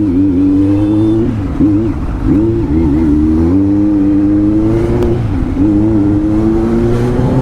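Kawasaki Z900's inline-four engine through an Arrow full-system exhaust, heard from the bike while riding. The note dips and recovers several times in the first few seconds as the throttle is worked, then holds a steady pull that slowly rises in pitch.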